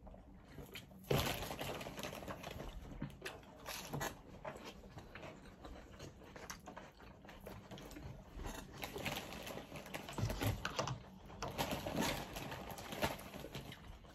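Table handling noises: irregular rustling, crackling and light clicks as a fried chicken sandwich is pulled apart by hand, the loudest crackle about a second in.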